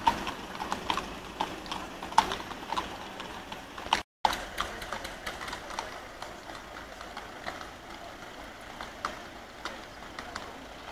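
Hooves of several walking horses clip-clopping on an asphalt street, an irregular patter of knocks that grows fainter as the horses move away. The sound drops out completely for a moment about four seconds in.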